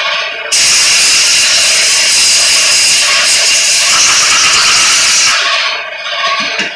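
Compressed air from an air-compressor blow gun hissing loudly as it blows crud out of a chainsaw bar's guide rails and oiler ports. The blast resumes about half a second in after a short break and stops about five and a half seconds in.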